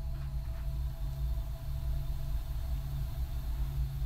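A low, steady rumble with a faint hum above it.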